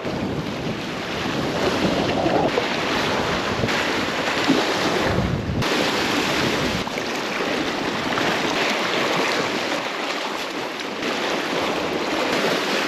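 Sea waves washing on the shore, with wind buffeting the microphone.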